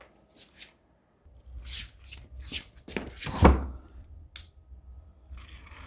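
Hands handling small hard objects: a run of irregular clicks and rustles, with one louder knock about three and a half seconds in.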